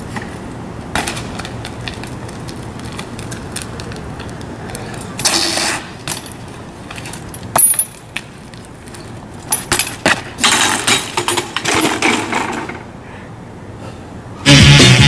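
BMX bike on concrete: metallic clicks and rattles from the bike, one sharp loud impact a little past halfway as it comes down, then a longer stretch of clattering and scraping as the rider crashes. Loud music starts just before the end.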